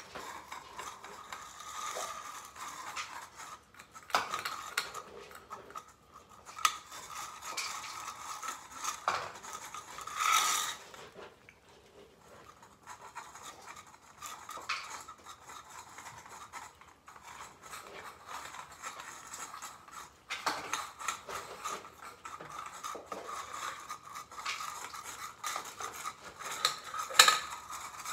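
Metal utensils and dishes clinking and scraping as cat food is spooned out into bowls. The sound is a run of scattered short clicks and scrapes, with a louder scrape about ten seconds in and a sharp clink near the end.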